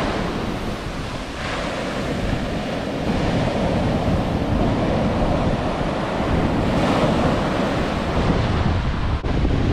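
Ocean surf breaking and washing up over the sand, with wind buffeting the microphone. The wash swells twice, about a second and a half in and again near seven seconds.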